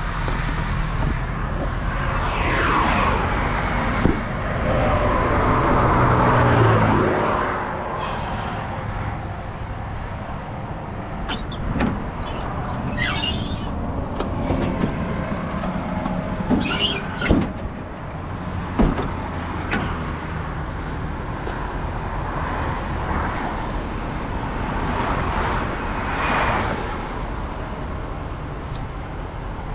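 Highway traffic going past close by, trucks and cars in waves with a falling pitch as they pass. A few sharp knocks and two short high hissing bursts stand out over the traffic.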